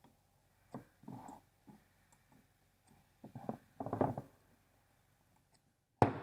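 Irregular clicks and knocks of things being handled, a few short bursts about a second apart, ending in one sharp, loud knock.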